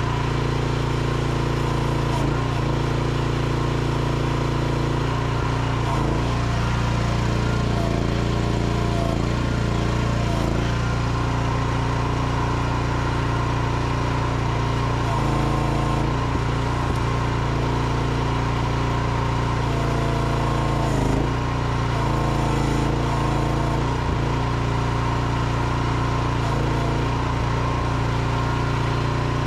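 Micro excavator's small engine running steadily while the boom and bucket work, its note shifting now and then as the hydraulics are loaded, with a brief knock about two-thirds of the way through.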